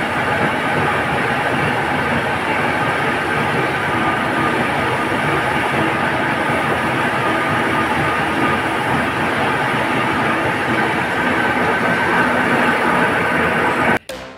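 Large old lathe running, its cutting tool working across the face of a big rotating metal disc, with a steady, loud grinding noise. The noise cuts off suddenly near the end, and a few sharp clicks follow.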